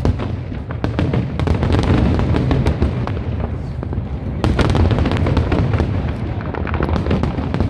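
Fireworks going off in a dense barrage: many sharp cracks and pops over a continuous low rumble of bursts, loudest about four and a half seconds in.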